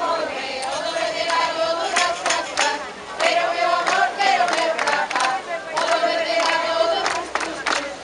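A group of high voices singing a Galician folk cantiga together in phrases with short breaks, with sharp percussive strikes in between.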